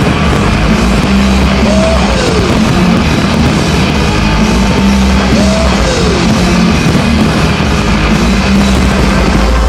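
Loud rock music, dense and continuous.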